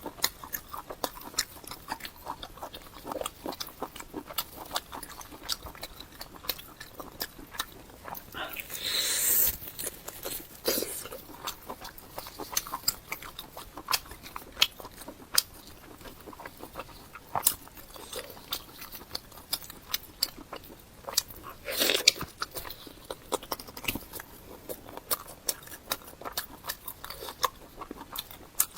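Close-miked chewing and biting of fatty pork: wet mouth sounds with many small clicks. A louder, longer rush of noise comes about nine seconds in and again a little past twenty seconds.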